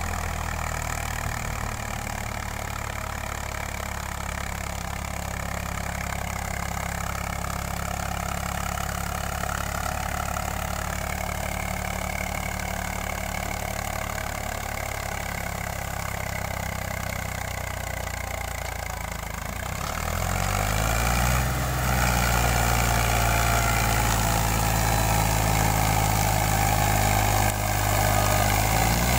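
Eicher 485 tractor's three-cylinder diesel engine running under load as it pulls a loaded trailer through loose, dug-up soil. About two-thirds of the way through, the engine revs up and then runs louder at the higher speed.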